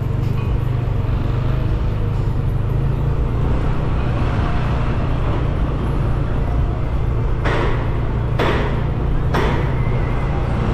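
A car driving slowly along a street: a steady low engine and road rumble, with three short rushing noises about a second apart near the end.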